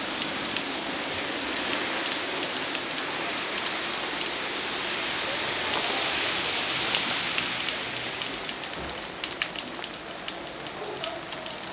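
Steady rain falling, with scattered close drops ticking, more of them a little after the middle.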